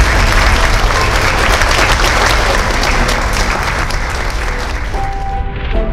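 A large audience applauding steadily, with music underneath; the applause thins out and fades near the end as the music comes forward.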